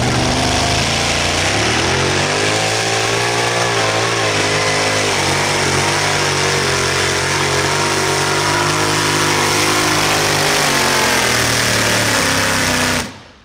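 Supercharged V8 engine of a light modified pulling tractor running hard at high, fairly steady revs under load during a pull, its pitch wavering slightly in the first few seconds. The sound cuts off suddenly near the end.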